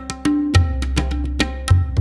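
Background instrumental music with a drumming rhythm of sharp strikes and deep bass strokes under held melodic notes.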